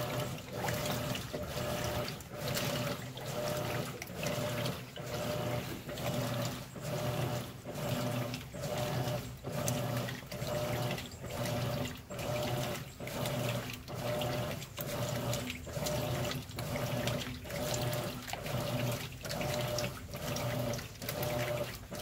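Top-load washing machine agitating a load of towels in water: the agitator motor hums and the water sloshes back and forth in a regular rhythm of about one stroke a second.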